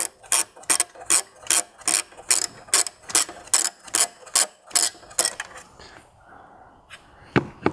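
Hand ratchet clicking with each back-stroke, about two and a half strokes a second, as it turns an Allen bit on a wobble extension to loosen the turbo-to-downpipe V-band clamp bolt; the clicking stops about five seconds in, and a single knock comes near the end.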